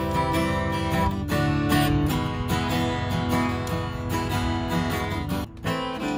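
Taylor 110GB acoustic guitar strummed in chords, freshly set up with lowered action and new strings. The playing breaks off briefly about five and a half seconds in.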